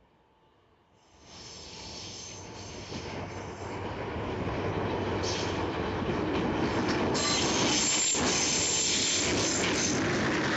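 JR Freight DF200 diesel-electric locomotive hauling a container freight train past, growing louder from about a second in as it approaches. Its wheels give a high squeal on and off over the rumble of the passing wagons.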